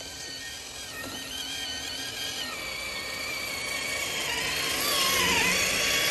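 RC crawler truck on rubber tracks, its electric motor and geartrain whining and growing louder as it drives up close, with the pitch dipping and climbing again with throttle near the end.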